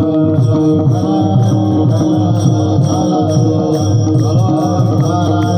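Kirtan bhajan: a group chants a devotional song to Vitthal over sustained instrumental tones, with a steady beat of sharp strikes about twice a second.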